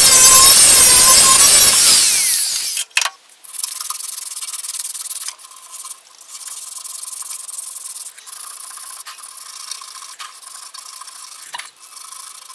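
Electric angle grinder with a wire-wheel brush running against the radiator's fill neck, then stopping about two seconds in. It is followed by steady hand scrubbing strokes on the metal neck with an abrasive, cleaning off old solder and debris before re-soldering a cracked joint.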